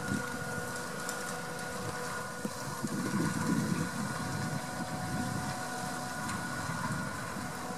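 McCormick MC105 tractor running steadily while working a hay tedder, its engine sound rising and falling, with a steady high whine held over it.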